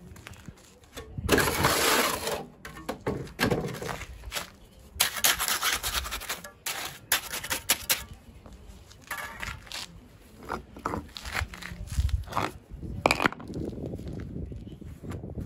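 Square steel trowel scraping and working a wet concrete bed in several gritty bursts, with sharp clicks of the blade against the stone. Near the end a flat pierre du Lot limestone paving stone is set onto the bed with a low knock and a sharp click.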